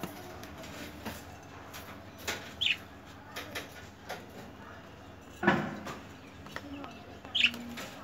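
A budgerigar chirps briefly twice, about two and a half and seven and a half seconds in, while its claws and beak click and tap on a hanging metal ring and the wire cage. A louder scuffle comes about five and a half seconds in.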